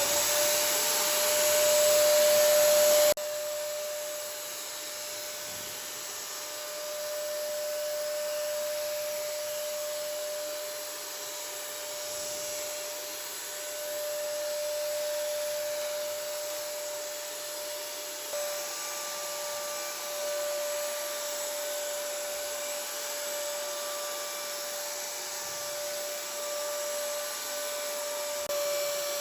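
DEKO cordless battery-powered paint sprayer running steadily while spraying paint: a constant motor whine over a rush of air. Louder for about the first three seconds, then steadier and a little quieter.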